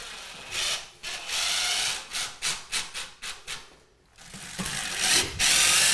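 Cordless driver with a long extension bit driving a screw through the side of a toilet's base into the floor, to hold the toilet down. It runs in several short bursts, then in a longer, louder run near the end.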